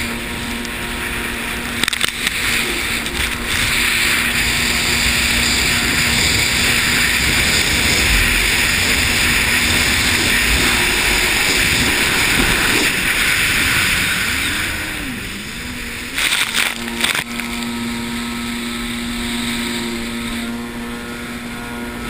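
Jet ski engine running at speed, heard from the rider's helmet with a loud rush of wind and spray over it. The engine pitch wavers and swoops in the middle as the throttle changes, and there are a few sharp bumps about three-quarters of the way through.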